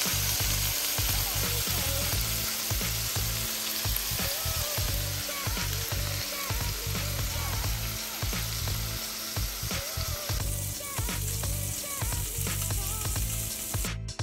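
Beef hamburger patties with onion and bell pepper frying in oil in a cast-iron skillet: a steady, dense sizzle.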